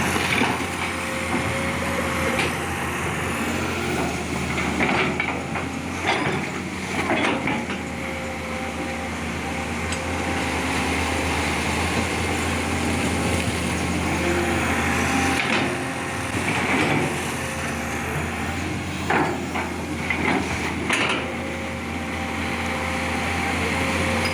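Excavator diesel engine running steadily, with a few sharp knocks about five to seven seconds in and again around twenty seconds in as the machine works.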